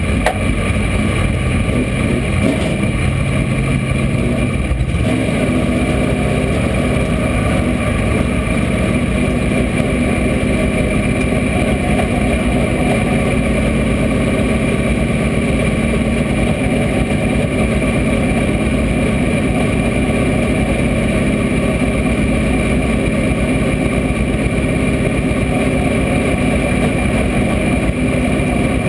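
Race car engine running steadily, heard loud from inside the cockpit, with a shift in its pitch about five seconds in.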